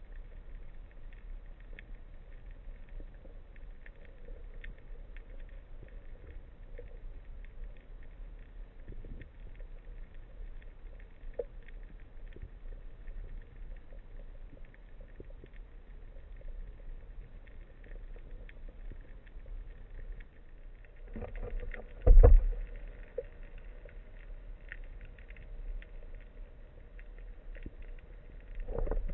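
Underwater sound picked up through the speargun camera's waterproof housing: a steady low rumble with scattered faint clicks, and one brief loud thump with a rush about 22 seconds in.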